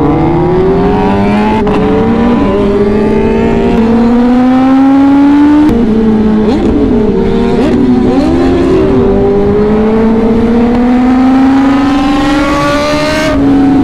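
Kawasaki ZX-10R's inline-four engine pulling hard under acceleration. Its pitch climbs steadily, drops once at an upshift about six seconds in, then climbs again.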